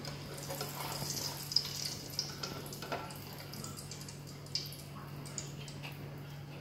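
Strips of bread dough deep-frying in hot oil in a wok, a steady sizzle, with a few sharp metal clinks as the wire strainer and chopsticks knock against the wok.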